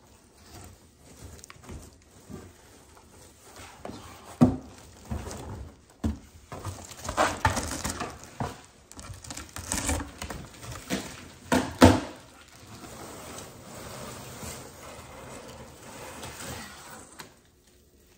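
A cardboard box and its packing being handled while an artificial Christmas tree is unboxed: irregular rustling, crinkling and scraping, with two loud knocks, about four and twelve seconds in.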